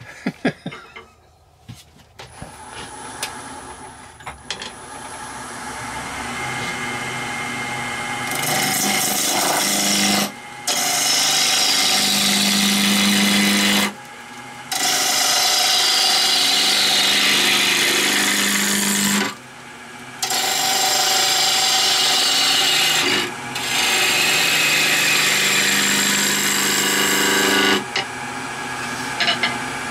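Wood lathe spinning up, then a turning tool cutting into a spinning walnut blank in several long passes with short breaks between them, roughing the outside round. Near the end the cutting stops and the lathe keeps running.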